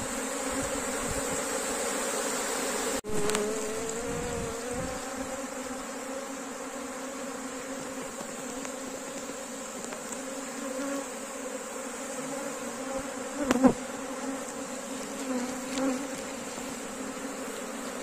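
Honey bee swarm buzzing, a dense steady hum of many bees in flight whose pitch wavers. A single short knock about two-thirds of the way through.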